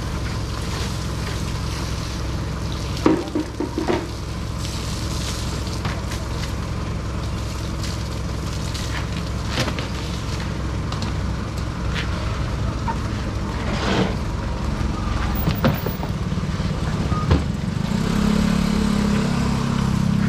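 Light truck's engine idling steadily, with scattered knocks and clatters of plastic basins and crates being set down on a table; a deeper engine drone swells near the end.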